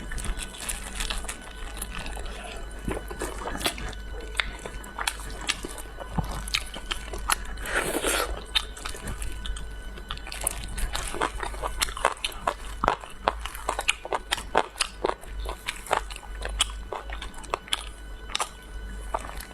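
Close-up chewing and biting of food, with many irregular crisp crunches and clicks from the mouth. There is a brief louder rustling noise about eight seconds in.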